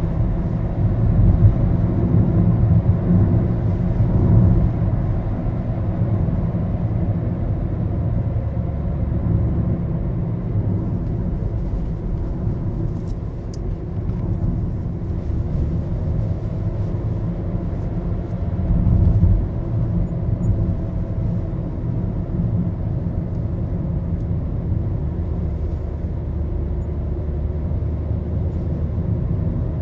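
Cabin noise of a moving Maruti Suzuki Baleno: a steady low engine drone with road rumble, swelling louder briefly a couple of times.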